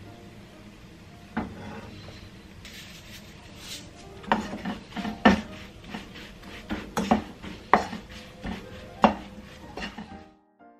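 Wooden spatula stirring and tossing seasoned vegetables in a coated frying pan: a single knock about a second and a half in, then a quick run of clacks and scrapes against the pan from about four seconds in, stopping suddenly near the end.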